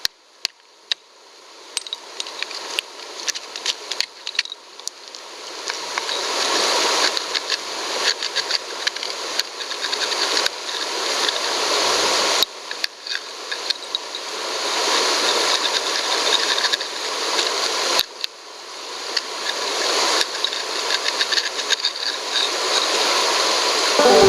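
Rushing creek water with a steady stream of small clicks and scrapes of gravel and stones being worked. It swells louder in long waves and breaks off abruptly twice.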